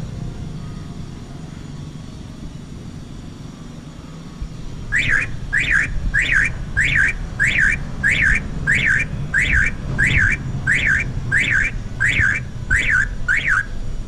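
Common myna giving a run of about fourteen identical rising-and-falling whistled calls, evenly spaced about one and a half a second, starting about five seconds in over a steady low rumble.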